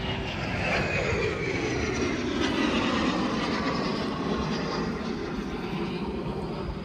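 An aircraft flying past, its engine note slowly falling in pitch as it goes by.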